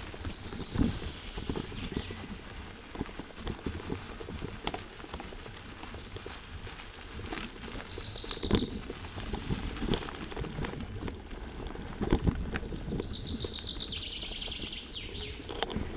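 Mountain bike ridden fast over a leaf-covered dirt forest trail: tyres rolling and the bike rattling, with irregular knocks over bumps. A bird sings briefly about eight seconds in and again near the end.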